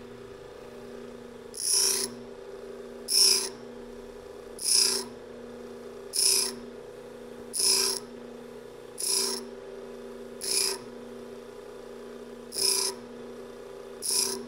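Bench grinder running with a steady hum while a twist drill bit is touched to the wheel in nine short grinding rasps, about one every second and a half, as the split point is ground into the bit.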